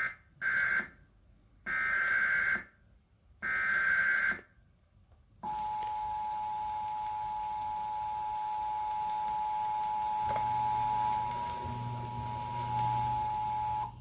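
Emergency Alert System tones: four short bursts of buzzing digital header data. About five and a half seconds in, the steady two-tone EAS attention signal starts and holds to the end.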